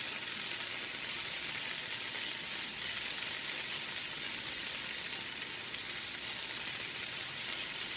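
Gnocchi frying in hot butter with sage leaves in a nonstick pan: a steady sizzle as the pieces brown.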